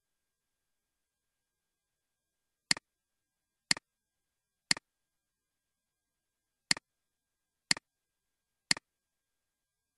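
Computer mouse clicks: six sharp double clicks about a second apart, in two runs of three, with nothing heard between them.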